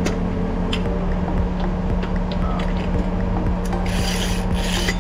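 A steady low mechanical hum, with two short rasping scrapes near the end, each under a second long.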